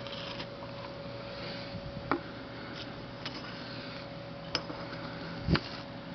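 Scattered light clicks and taps of handling, a few seconds apart, with a stronger soft thump about five and a half seconds in, over a steady faint hum.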